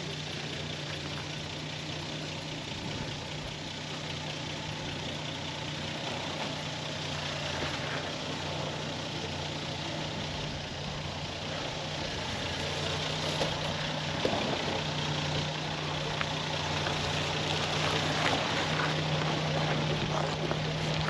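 Short-wheelbase Nissan GQ Patrol 4WD crawling down rock steps in low range, its engine running steadily at low revs, with a few faint clicks. It grows louder near the end as the truck comes close.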